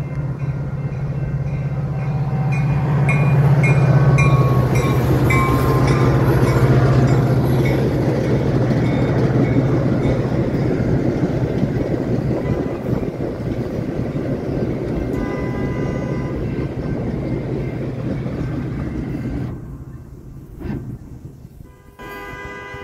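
Metra commuter train rolling past: a steady low diesel drone under the rumble of the bilevel cars. It is loudest a few seconds in, and the sound drops off sharply near the end.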